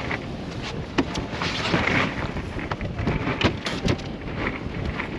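Wind buffeting the microphone and rough water washing against a small fishing boat's hull. There are a few sharp knocks about a second in and again between three and four seconds.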